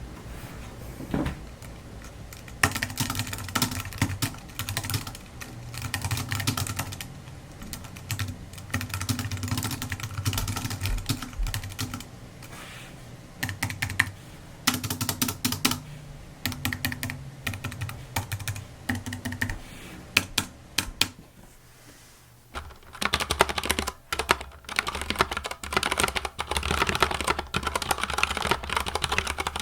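Typing sound test comparing a Durgod Taurus K320 mechanical keyboard with Cherry MX Brown switches and an Apple Magic Keyboard. Rapid key clacking runs throughout. About two-thirds of the way through it pauses briefly, then resumes with a different character as the typing moves to the other keyboard.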